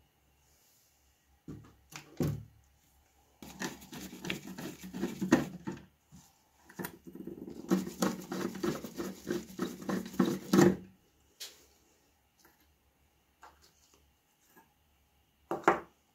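A nut driver turning the centre nut of a ringer bell gong on the metal base plate of a 1920s Siemens crank telephone, unscrewing it: rapid metallic clicking and scraping in two runs of a few seconds each. A few single knocks of metal parts being handled come before and after.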